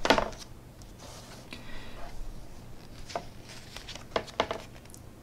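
A page of a hardback book being turned: one quick paper swish as it flips over, then softer rustling and a few crisp ticks of paper as the hand smooths the page down, twice close together near the end.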